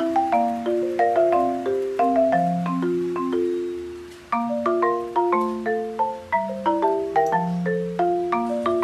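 Background music: a melody on marimba-like mallet percussion, struck notes over chords, pausing briefly about four seconds in before starting again.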